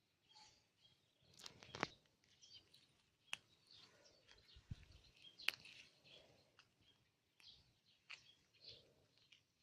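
Faint bird chirps, with three sharp clicks spread through the quiet.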